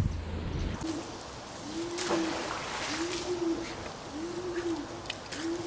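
A pigeon cooing: a run of low, evenly spaced coos, about one a second, starting just under a second in. A sharp click comes about two seconds in, and a few faint ticks near the end.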